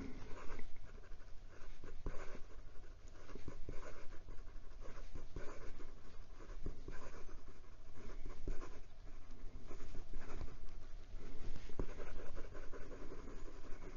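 Fountain pen nib writing quickly on notebook paper: a steady run of short, irregular scratching strokes as cursive words and loops are dashed across the line. The wet nib runs without issues.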